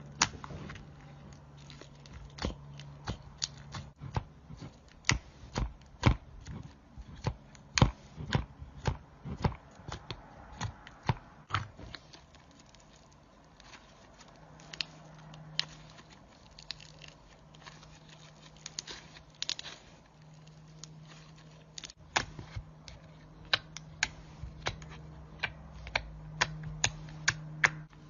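Slime being poked and squeezed by hand, giving irregular sharp pops and clicks. They come thick and fast for the first dozen seconds, thin out, then pick up again near the end, over a faint low hum.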